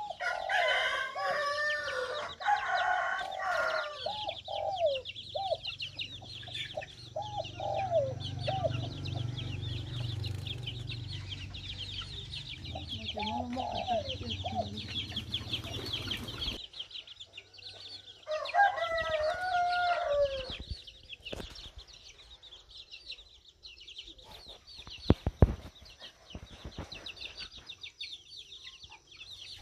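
Chickens clucking and a rooster crowing in several bouts, under a steady high-pitched chirring. A few sharp knocks come near the end.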